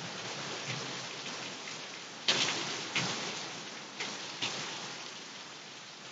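Hurricane-force wind and heavy rain, a steady rush broken by several sudden loud gusts that each die away within about half a second, the loudest about two seconds in.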